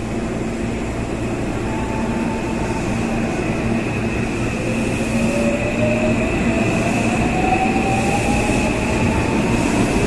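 Seibu 001 series 'Laview' electric train pulling out along the platform, with its rumble and a motor whine that rises steadily in pitch from about halfway through as it gathers speed.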